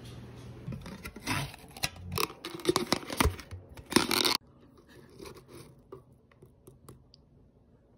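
Metal tin of wafer rolls being opened and handled: irregular scraping and clicking of the tin and lid with rustling of its paper liner. The loudest part ends sharply just past halfway, leaving faint light ticks as the rolls are touched.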